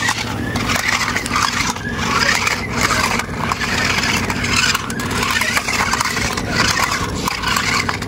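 Toy stunt RC car's small electric motors whirring and its rubber wheels scraping over stone slabs, coming and going in bursts as it drives and rears up.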